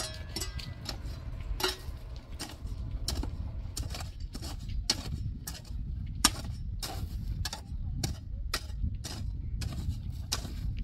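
Sharp strikes of a long-handled metal tool chipping at hard, stony ground beside concrete blocks, about two blows a second. A steady low rumble runs underneath.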